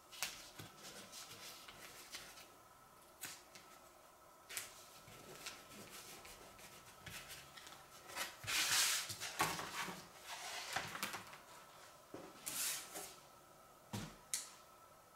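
Thin wood veneer sheets and a straightedge being handled on a workbench: scattered scrapes and light taps, with a louder rustling of a veneer sheet being lifted and flexed about eight to nine seconds in, and two sharp taps near the end.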